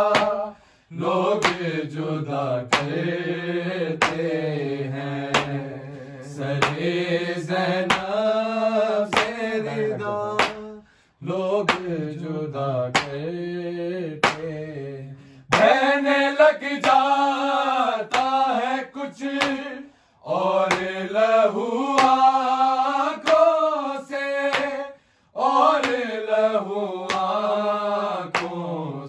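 A group of men chanting an unaccompanied Urdu noha (Muharram lament), line by line with short breaks between lines, over an even beat of matam hand strikes about one and a half times a second.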